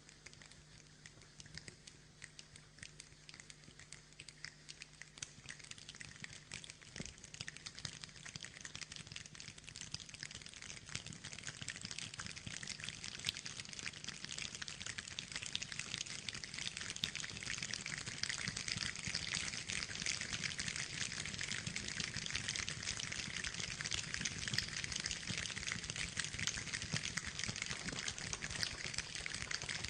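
Rain pattering as a dense hiss of countless small drop ticks, building from light to heavier over the first half and then holding steady. A faint low hum sits under it for the first few seconds.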